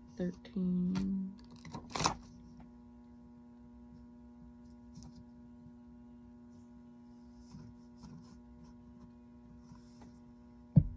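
A steady low electrical mains hum with evenly spaced overtones, under a woman's short thinking hum ("mmm") and a brief murmur in the first two seconds. One sharp knock comes near the end.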